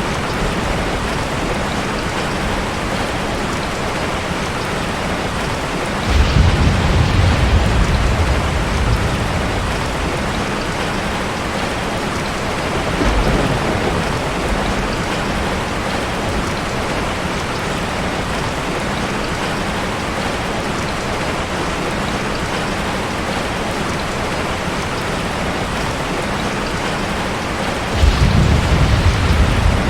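Steady rain falling, with a low rumble of thunder that sets in sharply about six seconds in and lasts a few seconds, a brief fainter rumble a little later, and another rumble near the end.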